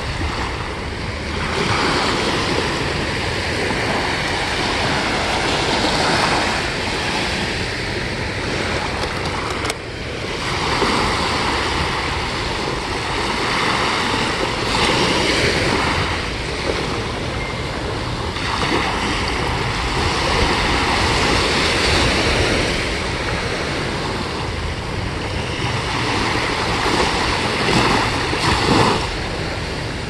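Small Chesapeake Bay waves lapping and washing up on a sandy beach, the wash swelling and fading every few seconds, with wind noise on the microphone.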